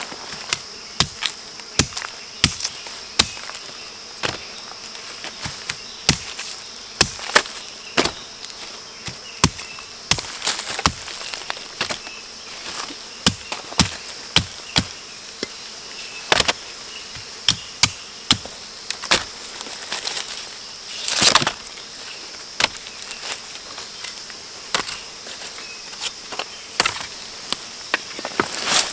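Steady high-pitched insect buzz, overlaid by irregular sharp knocks and snaps, one or two a second, with a longer scraping burst about two-thirds of the way through.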